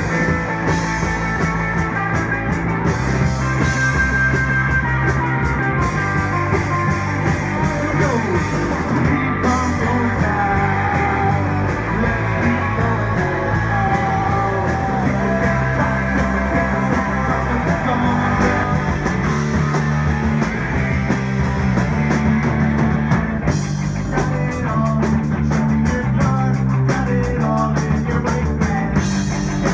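Live rock band playing: electric guitars, electric bass and a drum kit, loud and continuous.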